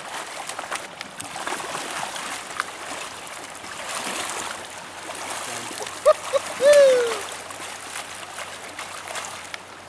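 Rushing stream water with a hooked trout splashing at the surface as it is played and then netted in the shallows. About six seconds in there is a short, high call-like sound, two quick notes and then a longer one falling in pitch.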